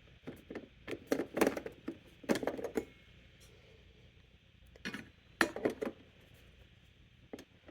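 Light clicks and knocks of hard objects being handled at the coffee maker, mugs and machine parts, in two clusters: a quick run over the first three seconds and a few more about five seconds in.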